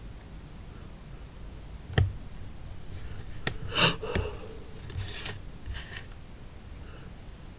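Hobby knife blade cutting through the small uncut tabs that hold laser-cut wood wall pieces to their carrier sheet. A sharp click about two seconds in, then a few short scratchy cuts and clicks.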